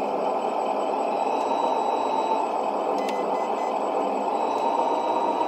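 An HG P411 RC truck's onboard sound module playing a steady simulated engine idle through its small speaker.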